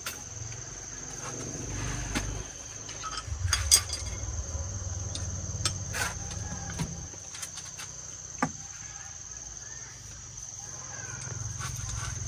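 Steady high-pitched insect drone, with scattered light clicks and knocks and a low rumble underneath.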